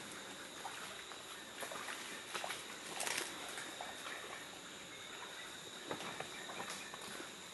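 Tropical forest ambience: a steady high insect drone at two pitches, with scattered crackles and rustles in dry leaf litter, the loudest about three seconds in.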